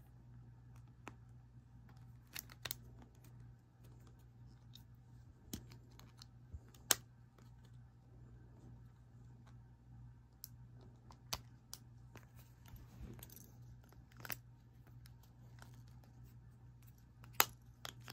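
Faint steady low hum with a scattered run of sharp clicks and taps from small objects being handled, the loudest about 7 seconds in and near the end.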